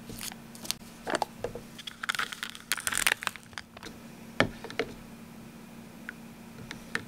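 Sealed lid peeled off a soup cup with a crinkling tear, followed by a few light clicks of a metal spoon against the cup as it stirs the soup.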